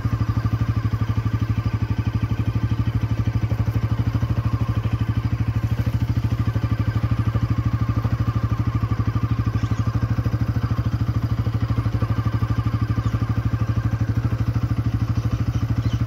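Motorcycle engine running steadily while being ridden, its rapid firing pulses even and unchanging.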